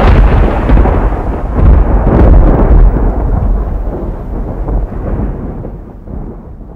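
A loud, deep rumble with crackle through it, like thunder or a big blast, that slowly fades away over the last few seconds.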